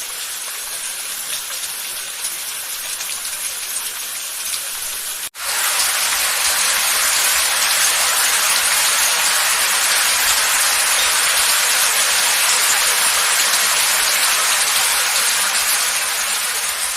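Rain falling steadily as a dense hiss of drops. About five seconds in it cuts out for an instant and comes back heavier and louder. It begins to fade near the end.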